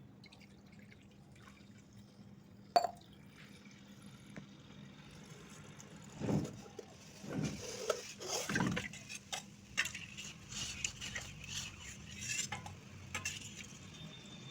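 Eating sounds close to the microphone: one sharp click about three seconds in, then from about six seconds on, irregular wet bites and chewing with many small crunchy clicks.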